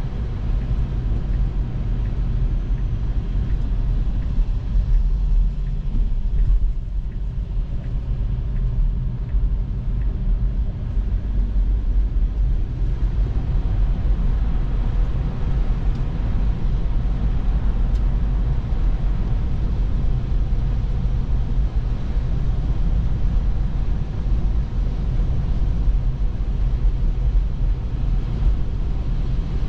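Steady low road and tyre rumble of a Tesla electric car driving, heard from inside the cabin.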